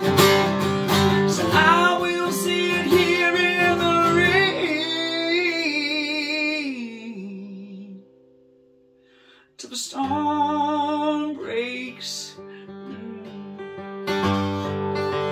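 Acoustic guitar strumming chords with a man singing a wordless, wavering vocal line over them. The last chord rings out and fades to a pause of about a second and a half, then the strumming starts again.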